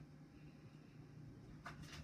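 Near silence: room tone with a faint steady low hum and a brief faint rustle near the end.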